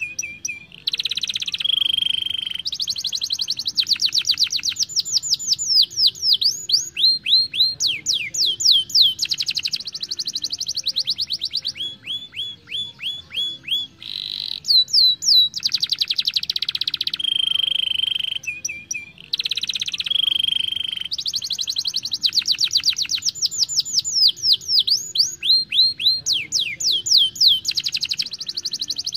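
Young domestic canary singing a long rolling song: fast runs of rapidly repeated notes, many sweeping downward, alternating with short steady whistled tones.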